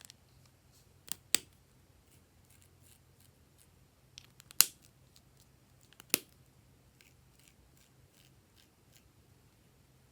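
A few sharp clicks or snips while slime materials are handled: two close together about a second in, a louder one about four and a half seconds in and another about six seconds in, with fainter ticks between.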